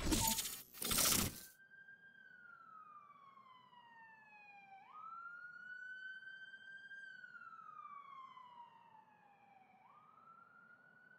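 Two loud, noisy bursts in the first second and a half, then a siren wailing slowly: its tone sinks for about three seconds, snaps back up, and sinks again, twice over.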